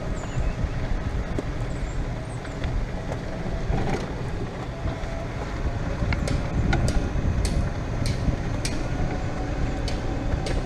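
Golf cart riding along: a steady low rumble of the ride with wind on the microphone, and several light clicks and rattles about six to nine seconds in. A few faint high chirps come in the first seconds.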